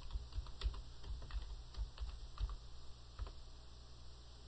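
Typing on a computer keyboard: a string of faint, irregular keystrokes.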